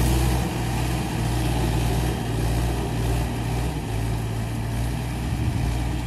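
Tractor's diesel engine running steadily under load as it pulls a rotary tiller through a wet paddy field.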